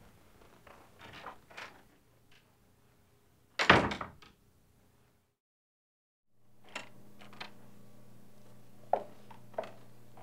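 A door slams shut once, loudly, about three and a half seconds in, after a few faint soft rustles. After a second of dead silence, a steady low room hum comes in, with a few light clicks.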